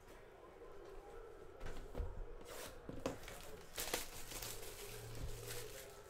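Trading-card packs and cards being handled: a handful of short, soft rustles, with a faint low hum for a second or so near the end.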